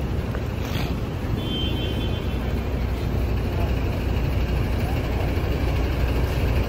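Busy street traffic: a steady low rumble of passing vehicles, including buses. A brief high tone sounds about one and a half seconds in.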